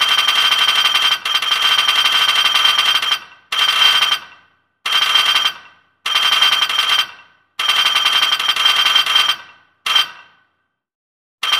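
A bell rings very rapidly, like an alarm-clock bell, in repeated bursts of about half a second to three seconds with short silences between. Each burst rings out briefly as it stops.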